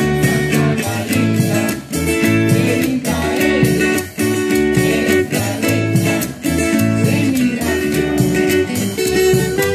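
Traditional Salvadoran folk music: strummed guitars over a steady, even rhythm.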